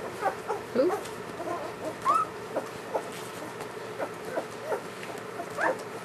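German Shepherd puppies squeaking and whimpering in short high calls, several a second, some sliding up and some down in pitch.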